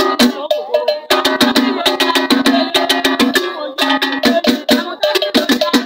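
Fast, loud percussion music of masquerade accompaniment: rapid struck beats with short pitched notes, played in a quick, busy rhythm.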